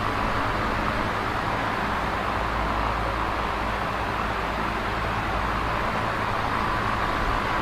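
Large box fan running steadily: an even whooshing rush of moving air, strongest in the mid range, over a low motor hum.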